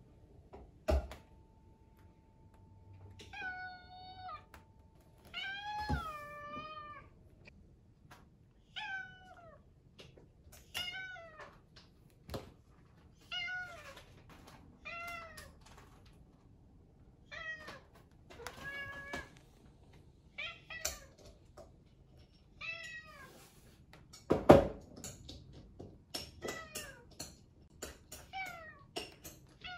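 British shorthair cat meowing over and over, short rising-and-falling calls about every one to two seconds, demanding its breakfast. A few sharp knocks come in between, the loudest about two-thirds of the way through.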